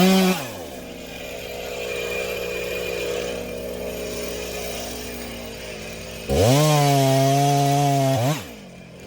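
Chainsaw engine idling between two throttle blips: a short rev that rises and falls at the start, and about six seconds in it rises to full throttle, holds steady for about two seconds, then drops back to idle.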